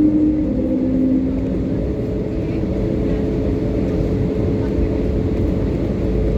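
Steady low rumble inside the cabin of an Airbus A320neo taxiing in after landing, with a steady hum that shifts in pitch within the first second or so.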